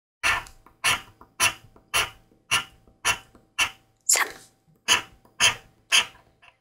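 Scratch-off instant lottery ticket being scratched in short repeated strokes, about two a second, around a dozen in all.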